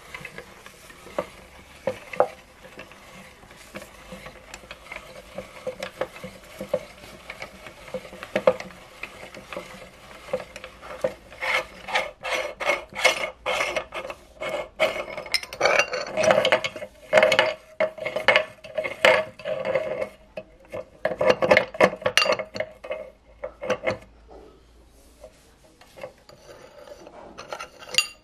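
Fingers rubbing and scraping ground biscuit crumbs off a meat grinder's metal cutting plate and a steel dish. Soft rustling at first, then a busy run of quick scrapes and metal clinks with a ringing note, easing off near the end.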